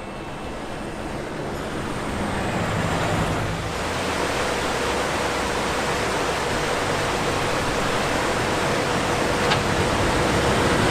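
Jeep Cherokee driving: a steady rush of tyre and wind noise that slowly grows louder, with a faint steady whine underneath from about four seconds in.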